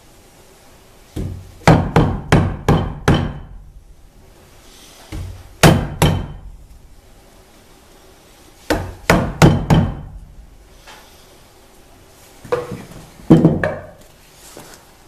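Wood chisel being struck to chop the end wall of a mortise in a timber: four bursts of three to six sharp blows, with short pauses between.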